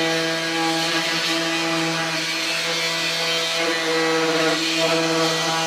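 Electric motor running steadily at constant speed, a fixed-pitch hum with a hiss over it, as from a power tool or compressor driving a paint or varnish sprayer.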